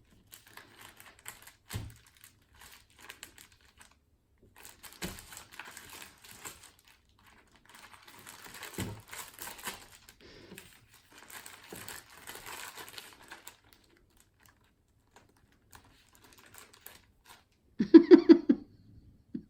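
Plastic slime packaging crinkling and rustling in bursts as it is handled, with light clicks between. A brief, louder pitched sound comes near the end.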